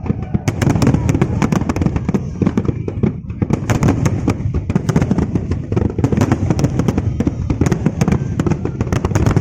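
Fireworks display: dense, rapid crackling and popping over a continuous low rumble of bursts.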